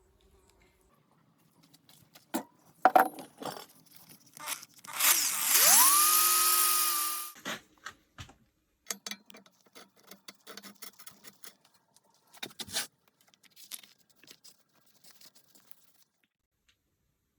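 Small electric power tool spinning up with a rising whine about five seconds in, running for about two seconds with a loud hiss over the motor, then stopping. Scattered clicks and knocks of parts being handled come before and after.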